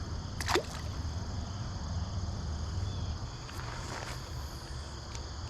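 Steady high-pitched insect chirring over low outdoor background noise, with a short sharp swish about half a second in and a few faint clicks later.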